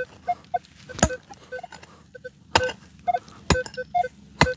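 A digging tool striking the ground about five times, roughly once a second, with short electronic beeps from a metal detector at a few fixed pitches in between.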